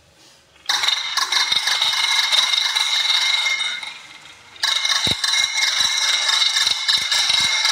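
Many marbles rolling down a wooden wave-shaped marble track and clattering into a plastic bowl: a dense rattle of clicks with a ringing tone, starting under a second in, dipping briefly near the middle, then starting again as the next batch runs.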